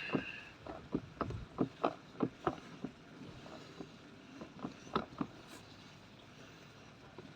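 Handling sounds from wetting and mixing tarantula-enclosure substrate: a run of sharp clicks and taps, about three a second for the first few seconds, then a few more around five seconds in.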